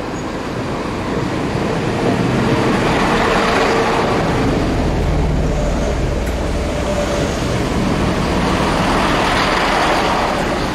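Class 165 diesel multiple unit passing close by: engine rumble and wheels running on the rails, swelling about two seconds in, staying loud as the coaches go past, and easing off near the end.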